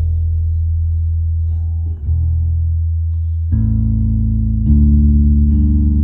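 Bass guitar played loud through a Hartke HD150 bass combo amp: long, ringing low notes, with a new note about two seconds in and more notes piling on after about three and a half and five seconds.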